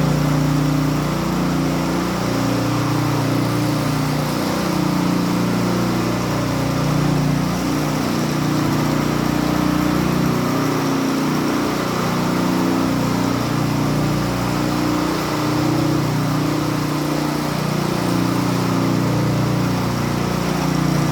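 Concrete power trowel's small engine running steadily as the machine smooths a fresh concrete floor, its pitch wavering slightly up and down.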